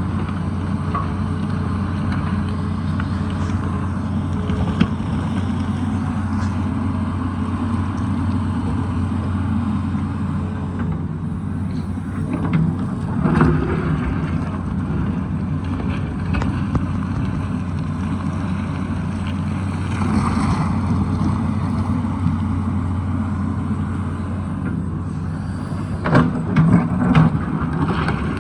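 Tata Hitachi excavator's diesel engine running steadily under work. A few short knocks stand out, one about halfway through and a cluster near the end, like the bucket striking rock and soil.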